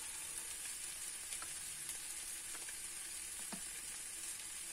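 Soy meat with onion and carrot sizzling quietly in a frying pan on an electric hob that has just been switched off. A steady, even hiss with a few faint ticks.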